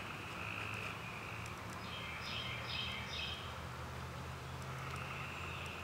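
Outdoor ambience: a steady high insect drone, with a short run of bird notes about two seconds in, over a low steady hum.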